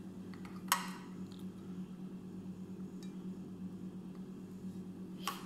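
A steady low hum, as of a fan or household appliance, with two sharp clicks, one about a second in and a fainter one near the end.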